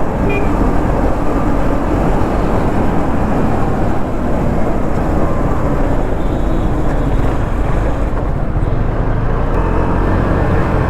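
KTM motorcycle engine running on its stock exhaust, a loud, steady low sound.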